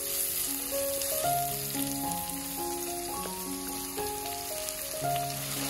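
Food sizzling in hot oil in a frying pan, a steady crackling hiss, under background music of slow held notes.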